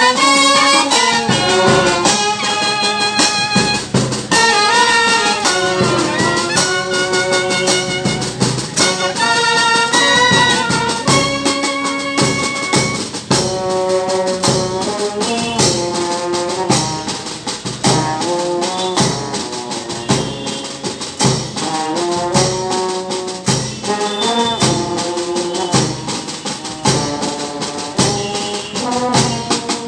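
A brass band with snare and bass drums playing live. Trumpets and lower brass carry a melody of held notes over a steady drum beat.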